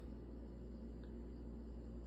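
Quiet room tone with a steady low hum and faint hiss.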